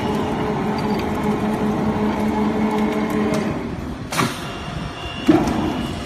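TDC flange roll forming machine running, its forming rollers turning with a steady hum that fades after about three and a half seconds. Two sharp knocks come about four and five seconds in.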